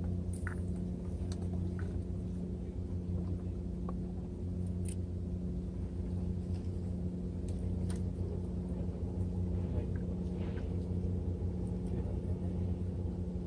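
Steady low engine hum with an even, unchanging pitch, with a few faint clicks and taps over it.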